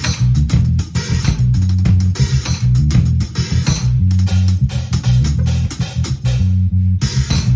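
Band playing at a sound check: bass guitar line, guitar and drum kit. The drums drop out briefly near the end while the bass carries on.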